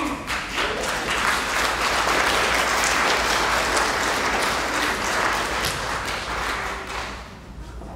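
Audience applauding, the clapping dying away about seven seconds in.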